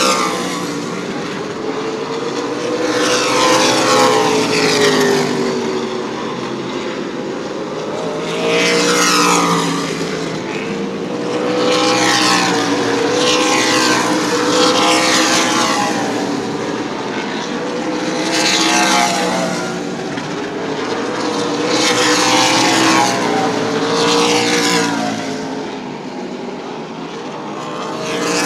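Super late model stock cars' V8 engines racing past at full throttle in a string of pass-bys. Each car swells in loudness and drops in pitch as it goes by, with a new one arriving every few seconds.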